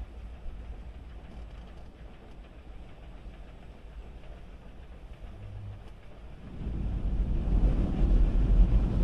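Automatic car wash heard from inside the car: a steady low hum of the wash gantry and water. About two-thirds of the way through, the water spray hitting the windscreen and bodywork grows much louder and stays loud.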